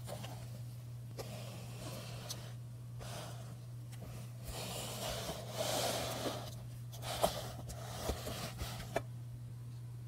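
A person breathing close to the microphone in soft noisy swells, over a steady low hum, with a few light taps in the second half.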